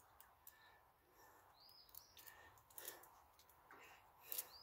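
Near silence, with two faint short bird chirps and a few faint light clicks.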